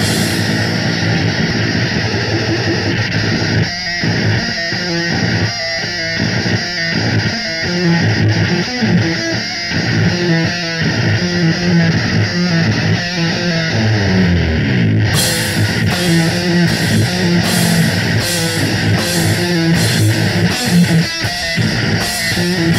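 Live doom/sludge band playing: heavily distorted electric guitar and bass riff in chopped, stop-start chords, with drums and cymbals crashing in about two-thirds of the way through.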